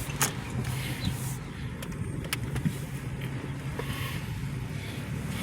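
Car cabin noise while driving: the engine and road hum run steadily, with a few light clicks or knocks.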